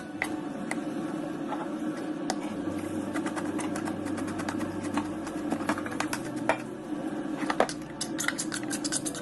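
Hands washing fresh leafy greens in water: irregular small splashes, clicks and rustling of wet leaves over a steady low hum.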